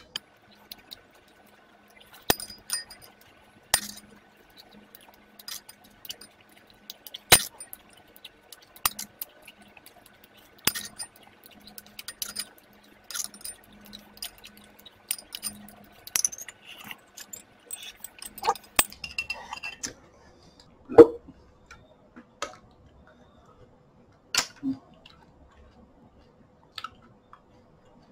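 A spoon clinking and scraping against a ceramic bowl of cornflakes and yogurt, in irregular short, sharp clinks, the loudest about three quarters of the way through.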